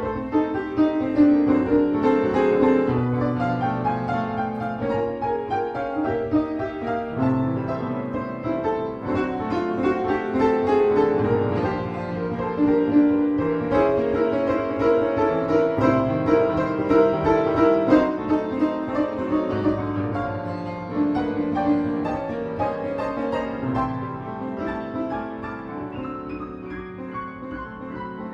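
Solo piano playing a composed piece, a dense run of notes over held chords, growing gradually softer over the last several seconds.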